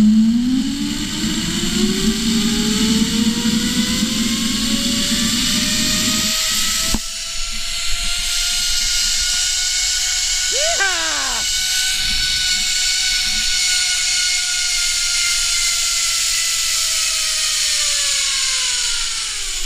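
Zip-line trolley pulleys whining along the steel cable, rising in pitch as the rider gathers speed, holding steady, then falling away near the end as he slows toward the platform. A steady rush of wind on the microphone runs underneath, and a short warbling sound breaks in about eleven seconds in.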